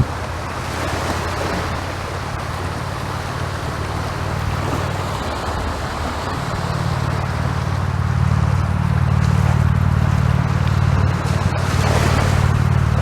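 Sea waves surging and breaking on the shore, with a steady hiss of surf and a deep low rumble that grows louder about halfway through.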